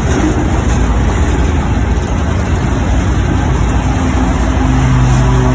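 Train running by with a loud, steady rumble; a steady low tone comes in near the end.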